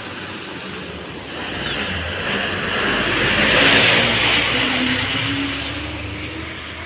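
HRTC bus's diesel engine and tyres passing close by. The sound builds, peaks about four seconds in as the bus goes past, then fades, with the engine note rising as it pulls away up the road.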